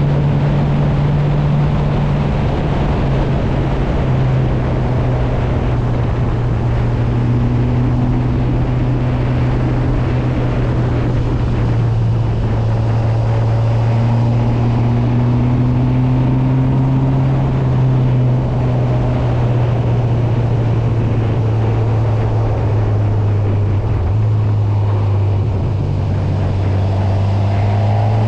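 Honda CB1000R's inline-four engine running at a steady, even pitch over a constant rushing noise. It eases off briefly about 24 seconds in and picks up again near the end.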